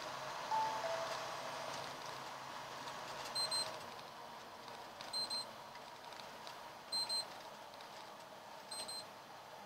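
An electronic beeper in the truck cab sounds a quick high double beep four times, about every two seconds, over the steady road noise of the moving truck. About half a second in, a short falling two-note chime sounds once.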